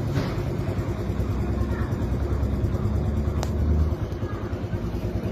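Steady low vehicle rumble, easing off slightly about four seconds in, with one sharp click about three and a half seconds in.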